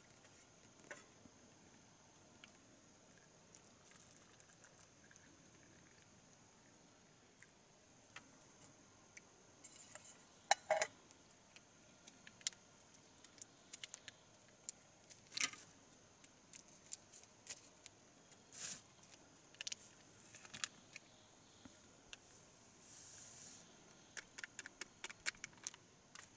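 Faint scattered clicks and taps of small tableware and packaging being handled, with a brief crinkle of a plastic packet near the end.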